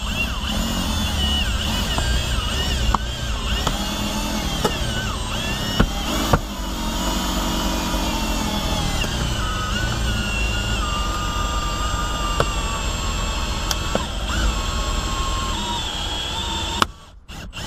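Cordless drill driving a Ring Cut windshield-removal winder, reeling in the cutting wire as it saws the old windshield free. The motor runs steadily with a whine whose pitch wavers under the changing load, and stops abruptly near the end.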